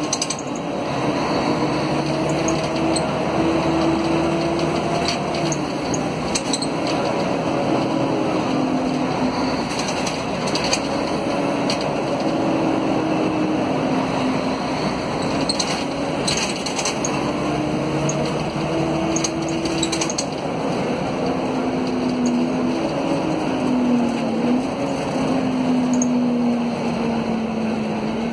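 Mercedes-Benz OM457LA inline-six diesel of an O500 UA articulated bus, heard from inside the passenger cabin, pulling the bus along: the engine note climbs and steps down several times as the ZF Ecomat automatic gearbox shifts. Sharp rattles and knocks from the bus body come through over the engine.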